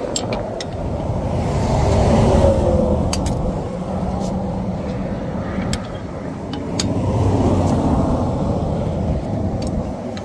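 Interstate traffic passing close by, a steady rumble that swells twice as vehicles go past. A few sharp clicks sound over it.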